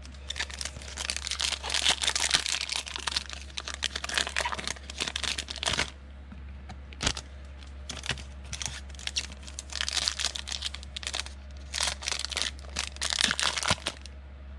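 Foil trading-card pack wrappers crinkling and tearing as packs are ripped open, in several bursts of a few seconds each with sharp crackles. A low steady hum runs underneath.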